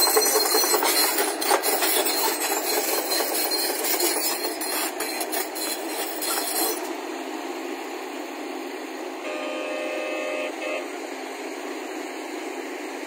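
JCB crawler excavator's diesel engine running under load and its steel tracks clattering as it drives along, growing gradually quieter as it moves off. A brief steady tone sounds near ten seconds in.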